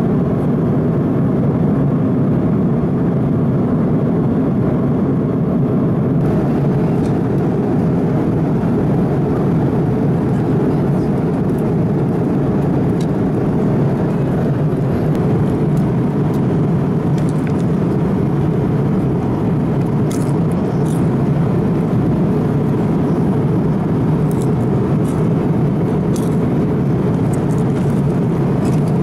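Steady cabin noise inside an Airbus A330-200 airliner in cruise: the even rush of engines and airflow through the fuselage. A few faint clicks sound in the second half.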